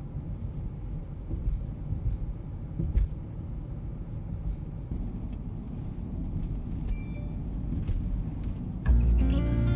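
Car driving: a steady low road rumble. Music comes in near the end.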